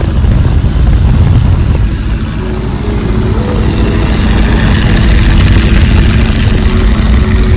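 Boeing Stearman biplane in flight, heard from its open cockpit: the radial engine and propeller running steadily under heavy wind rush on the microphone. The rush grows a little brighter and louder about halfway through.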